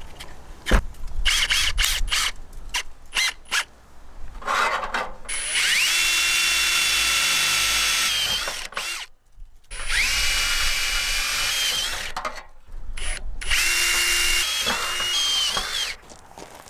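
Drill bits clicking in a plastic bit case as one is picked out, then a Ryobi 18V cordless drill drilling through an aluminum bar in three runs of a few seconds each, a steady whine that rises in pitch as each run starts.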